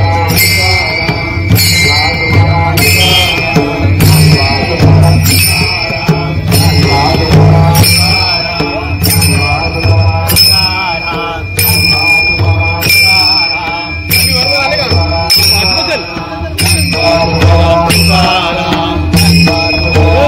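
Warkari bhajan: group chant-singing over a two-headed pakhawaj drum and brass taal hand cymbals, the cymbals clashing in a steady regular beat.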